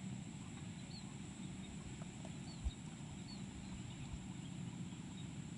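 Outdoor ambience: a steady low rumble under a steady high thin tone, with a few faint short chirps. One brief low knock comes about two and a half seconds in.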